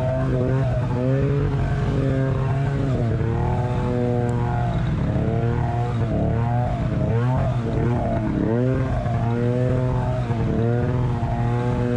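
Snowmobile engine running under the rider, its pitch rising and falling every second or two as the throttle is worked, over a steady low drone.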